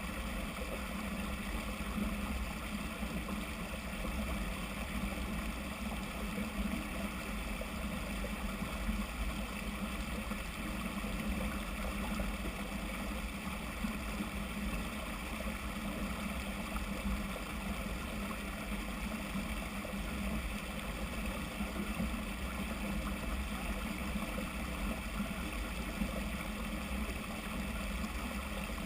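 Steady rushing noise with a strong low rumble: wind and trail noise on a mountain bike's camera while riding.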